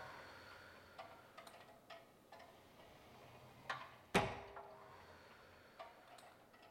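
Pilates Allegro reformer clicking and clacking as the carriage and foot strap move under a leg exercise: a scattering of light clicks and one louder knock about four seconds in, with a brief metallic ring after it.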